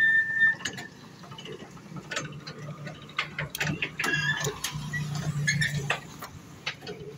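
Corrugated metal roller shutter being unlocked and opened: clicks, knocks and rattling of the metal slats, with short squeaks near the start and about four seconds in.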